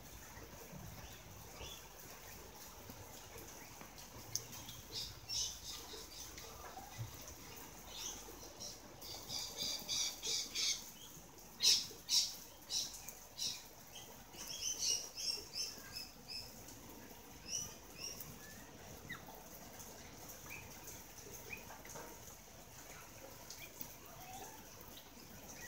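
Galah flapping its wet wings while bathing, with a run of short, sharp, high bird calls that come thickest around the middle.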